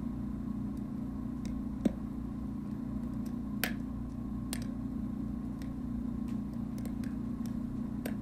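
Wood fire burning in the batch box of a batch rocket mass heater: a steady low rush from the draft, with a few sharp crackles from the burning wood, the loudest about two seconds in.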